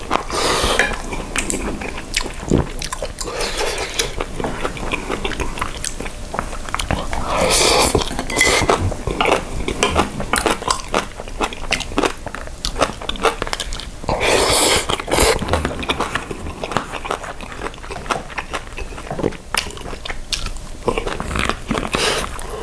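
Close-miked eating of jjajang ramen noodles and beef rib meat: steady chewing and biting, wooden chopsticks clicking against ceramic bowls, and a few louder slurps of noodles.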